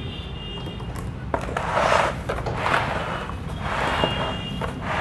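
A hand mixing oily, spice-coated raw mango pieces in a plastic tub: starting about a second in, a run of rustling, squishing swishes about once a second as the pieces are turned over, over a steady low hum.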